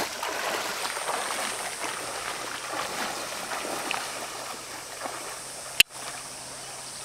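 Water splashing and sloshing as a dog paddles through a shallow river, over the steady rush of the flowing water. A single sharp click near the end.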